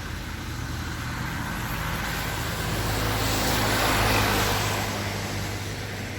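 Steady low hum of a car's engine and road noise, with a rush of noise that builds and fades about four seconds in, like a vehicle passing.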